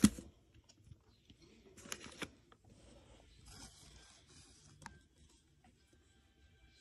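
Crisp crackles and clicks as a pink wafer chocolate bar and its cardboard box are handled: a sharp click at the start, a short cluster of crunches about two seconds in, then faint crackling.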